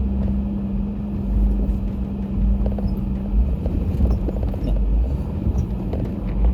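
Jeep engine running at low speed while crawling over a rock obstacle, a strong uneven low rumble with scattered small knocks. A steady hum fades out about halfway through.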